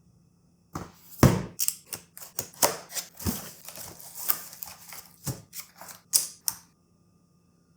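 Keyboard packaging being handled during unboxing: a busy run of knocks, clicks and rustles for about six seconds, the loudest knock about a second in.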